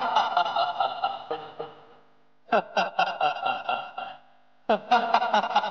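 A man laughing loudly in three long bouts of rapid 'ha-ha' pulses, with short pauses between them.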